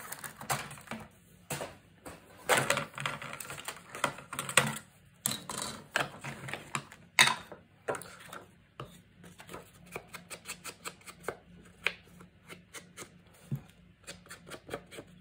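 Paper being trimmed on a sliding paper trimmer and its corners rounded with a corner punch: a run of sharp clicks, taps and paper rustles, louder in the first half and then many small quick clicks.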